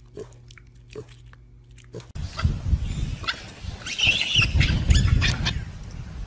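A piglet chewing, heard as soft clicking crunches over a low hum. About two seconds in, this cuts to louder outdoor noise with knocks and a brief wavering high-pitched sound about four seconds in.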